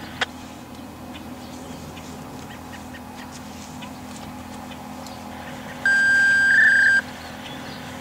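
A loud, steady electronic beep lasting about a second, starting about six seconds in, over a steady low hum. There is a sharp click just after the start.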